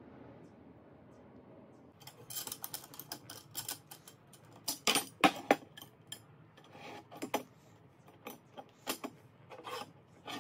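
Steel square tubing, bolt and nut being handled and fitted together on a wooden workbench: a run of irregular metal clicks and knocks starting about two seconds in, loudest around the middle.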